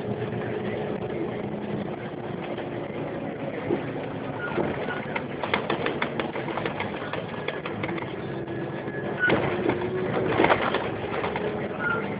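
Inside the cab of a moving city bus: steady running hum, with bursts of rattling and knocking from the body about halfway through and again near the end, and a few short high squeaks.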